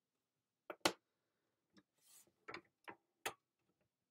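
Light plastic clicks and knocks from a hinged stamp positioning tool as its clear stamp door is closed down onto the card and the stamp pressed. The loudest knock comes about a second in, followed by a few softer taps.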